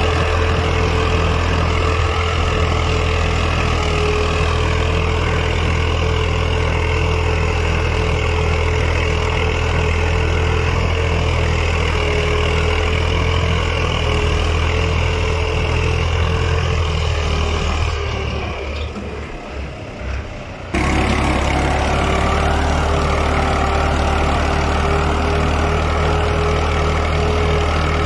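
Al-Ghazi tractor's diesel engine running steadily under load as it pulls a five-tine cultivator through the soil, with a deep rumble and a steady whine. About two-thirds of the way through the sound drops and turns muffled for a couple of seconds, then comes back suddenly.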